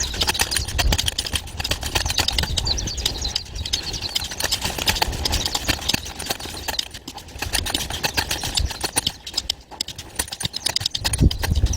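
Homemade concrete compacting tool rattling and tapping rapidly, many irregular clicks a second, with brief dips about seven and ten seconds in.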